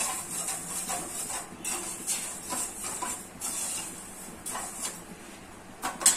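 Slotted stainless-steel spoon stirring undissolved sugar and water in a steel pan, the granules grating against the metal in repeated scrapes about twice a second, thinning out later, with one sharp metallic clank near the end.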